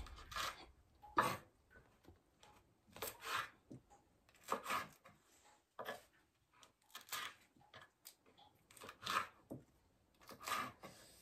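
Kitchen knife slicing green chilies on a wooden cutting board: short, sharp taps of the blade on the board in small clusters every second or two, the loudest about a second in.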